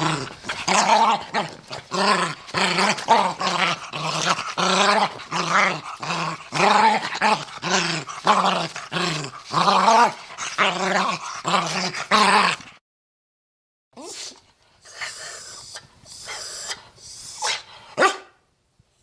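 A dog-like animal crying out again and again: about twenty short, pitched cries, roughly two a second, then after a pause of a second or so, fainter, breathy sounds.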